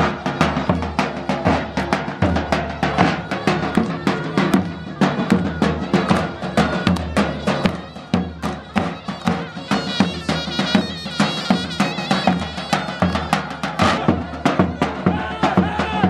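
Davul and zurna playing a lively folk dance tune: the big double-headed drum beating a steady rhythm under the zurna's reedy, high melody.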